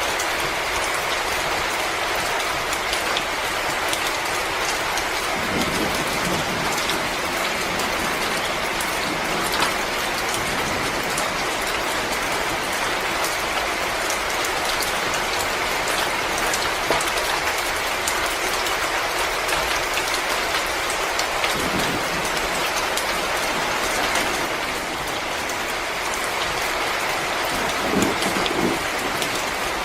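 Wood fire crackling in a fireplace: a steady hiss with a dense scatter of small snaps and pops, and a few louder pops now and then.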